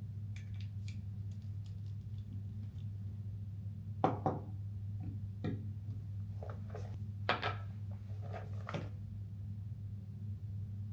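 A few light clinks and knocks of small hard objects being handled and set down, bunched in the middle of the stretch, over a steady low hum.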